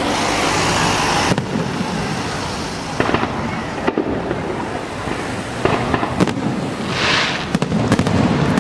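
Fireworks display: a continuous rumble of bursts, with sharp bangs every second or so and short hissing, crackling flares.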